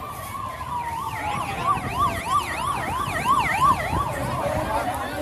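Emergency vehicle sirens: one long falling wail, overlapped by a fast warbling yelp at about three cycles a second that fades near the end.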